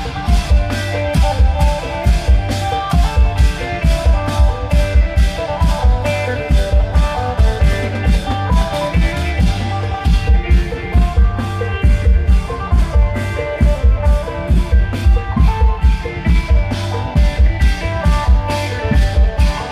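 Isan klong yao long-drum band music played through an amplified sound system: a driving, evenly repeating drum beat under a melody line.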